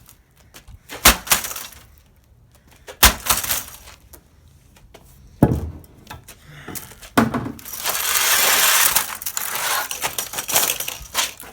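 A computer monitor being smashed with heavy tool blows: three sharp strikes about two seconds apart, then a few seconds of continuous breaking and crunching of glass and plastic.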